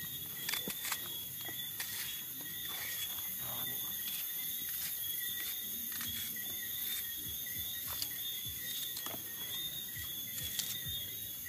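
Night insects, crickets, chirring in steady high-pitched tones, with scattered small crackles and pops.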